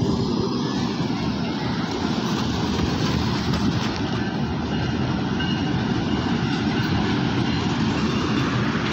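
Diesel-hauled passenger train running past, a steady rumble of the locomotive and coach wheels on the rails.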